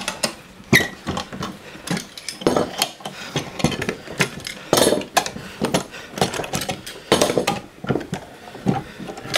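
Metal bar clamps being unscrewed and pulled off a glued wooden guitar blank: the screws turning and the clamp bars and jaws clanking and rattling, in a string of irregular knocks.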